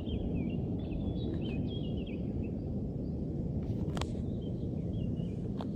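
A steady low rumbling drone with faint bird chirps above it. Two sharp clicks come about four seconds in and near the end.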